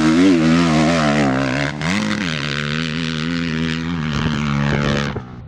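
Motocross dirt bike engine revving, its pitch rising and falling with the throttle for the first couple of seconds, then holding steadier. It cuts off abruptly near the end.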